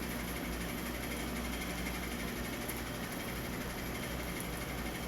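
Steady low hum of background room noise, with no distinct events.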